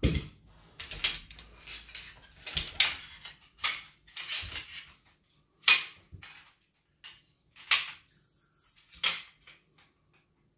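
Shock-corded aluminium camp-cot pole sections clinking and clacking as they are handled and slotted together: a string of sharp metallic knocks, roughly one a second, that stops shortly before the end.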